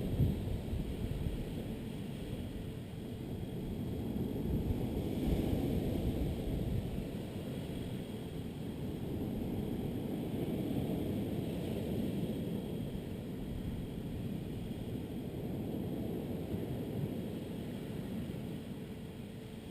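Low rumbling noise that swells about five seconds in and again around eleven seconds, then slowly eases off.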